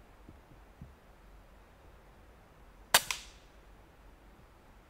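A pre-charged pneumatic air rifle fires a single shot at a squirrel in the treetops: one sharp crack about three seconds in, followed a fraction of a second later by a second, fainter crack that dies away quickly.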